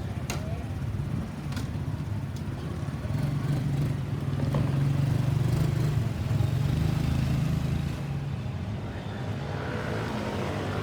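Road traffic: a motor vehicle's engine and tyres, a steady low rumble that grows louder about three seconds in and fades after about eight seconds as it passes. No siren is sounding.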